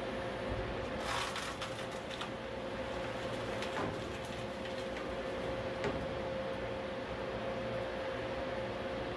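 Catalytic-converter de-canning guillotine running with a steady motor hum and a constant whine, as its blade cuts through a converter's steel shell. There is a burst of crunching and scraping about a second in, then single sharp cracks near the middle and about six seconds in.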